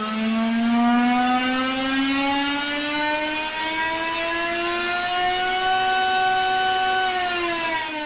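Honda 1.6-litre V6 turbo Formula One engine accelerating, its pitch climbing steadily for several seconds, holding briefly, then dropping as it comes off the throttle near the end.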